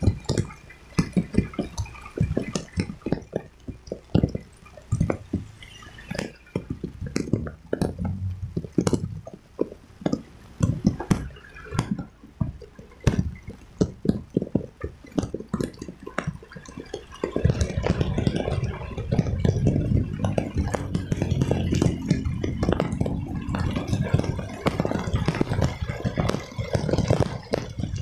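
Raindrops hitting the phone's microphone in sharp, irregular taps during a motorcycle ride in heavy rain. About seventeen seconds in, a louder steady rumble of wind and road noise joins them.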